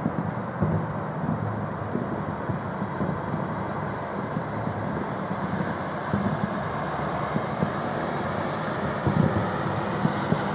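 Steady city traffic noise with a few short thuds, one about half a second in and several near the end.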